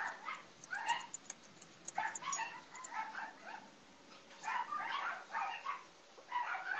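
Dogs yipping and whining in short, high-pitched cries that come in several clusters, with brief pauses between them.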